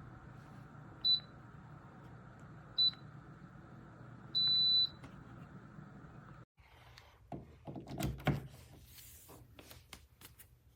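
Dreo Lynx S table fan running with a steady hum while its controls answer with beeps: two short ones, then a longer one about four and a half seconds in. The hum stops suddenly about two-thirds of the way through, and a run of clicks and knocks of handling follows.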